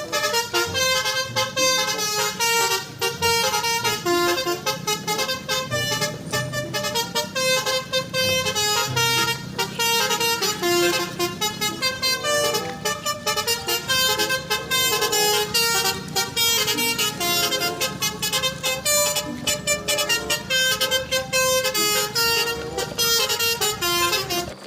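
Upbeat background music: a melodic tune of short stepping notes over a steady beat.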